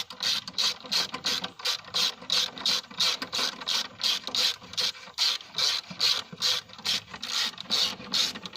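Hand ratchet wrench turning a 10 mm battery hold-down bolt, its pawl clicking in quick, even back-strokes about three times a second. The bolt is being snugged just enough to hold the battery in place, not made really tight.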